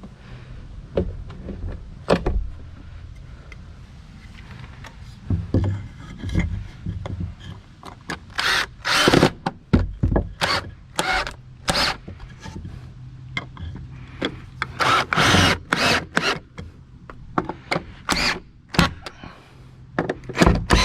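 Ryobi cordless drill driving screws into a wooden board in short bursts, with knocks and handling clatter between them; the loudest, longest bursts come in a cluster about eight to twelve seconds in and again about fifteen seconds in.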